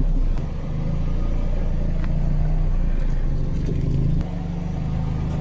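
Car engine running at low speed, a steady low hum with a few faint ticks.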